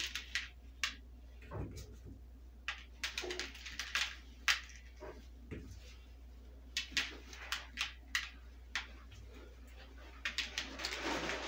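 Sprinkles pinched from a jar and dropped onto a chocolate-coated pretzel rod, ticking onto a paper plate beneath it: a run of light, scattered clicks that grows thicker near the end.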